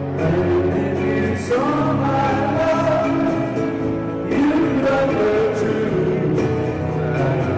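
Music with singing over sustained chords.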